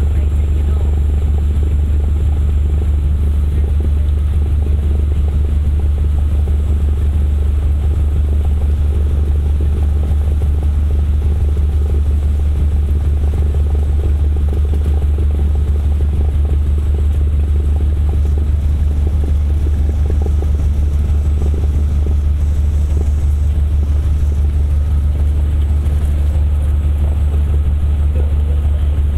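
Cessna 172's piston engine and propeller running steadily while taxiing, heard from inside the cockpit as a deep, even drone.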